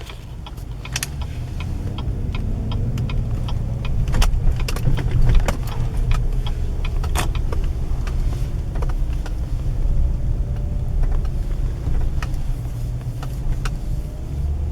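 A car being driven: a steady low rumble of engine and road noise, with scattered light clicks and rattles.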